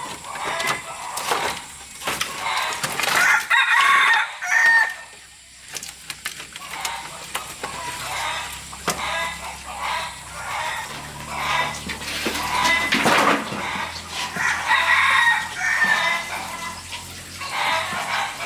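Domestic chickens calling, with a rooster crowing and hens clucking in repeated bouts.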